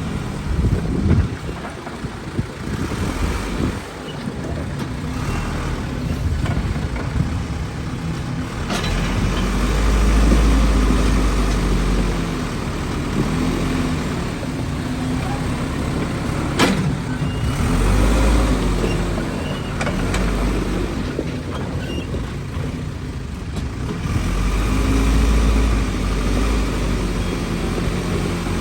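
Backhoe's diesel engine running and revving up repeatedly under load as it works, with a single sharp knock about halfway through.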